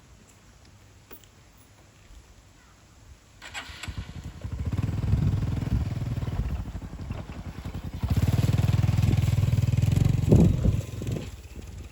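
A small engine starting up about three and a half seconds in and running, louder from about eight seconds in, then dropping away near the end.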